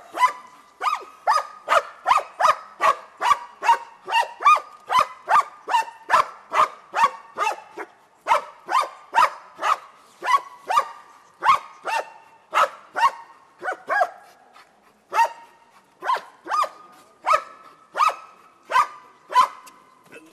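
German shepherd barking at a protection-work helper at the blind: a long run of sharp, rhythmic barks, about two a second, with a couple of brief pauses.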